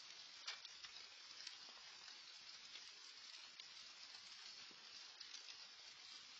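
Light rain falling: a faint, steady hiss with scattered small ticks of drops landing.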